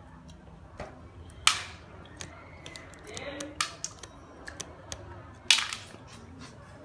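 Cooked crab claw shells being cracked open while eating: two sharp cracks, one about a second and a half in and a louder one later, among lighter clicks and crunches.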